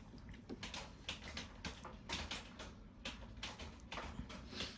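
Faint, irregular clicking and tapping, several clicks a second, over a low steady hum.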